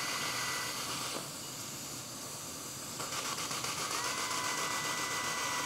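Dental implant handpiece motor whining as it drills pilot holes in the upper gum for mini implants, over a steady hiss of the suction tip. The whine stops about a second in and starts again about four seconds in.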